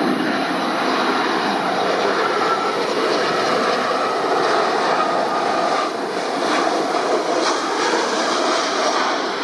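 Jet engines of an Airbus A320-family airliner on low final approach: a steady rushing noise with a faint whine, easing off slightly near the end.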